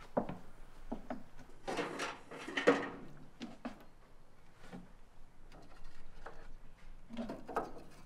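Small wooden objects being handled on a wooden rail: scattered light knocks and rubbing, with louder scrapes about two seconds in and again near the end.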